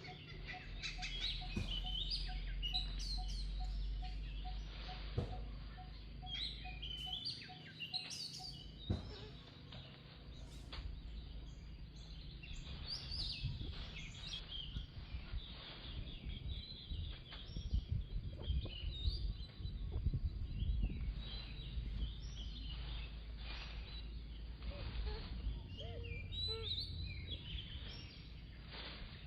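Birds chirping and twittering in short, high calls scattered throughout, over a steady low rumble.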